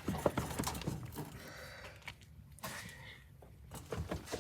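Light clicks and knocks of metal parts being handled while a Ford-o-Matic automatic transmission is taken apart, busiest in the first second and again near the end.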